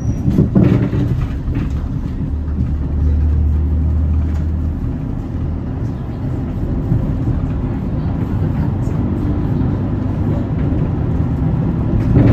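Hyundai Green City diesel bus under way: steady engine drone and road noise, with a stronger low drone from about two to five seconds in. There is a short louder noise just after the start and again at the end.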